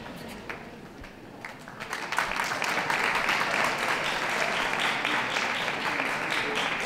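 Audience applauding, the clapping rising about two seconds in and then holding steady.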